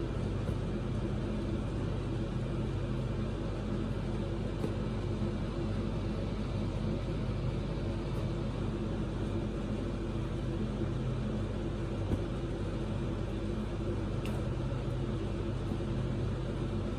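Steady low mechanical hum with a few faint ticks scattered through it.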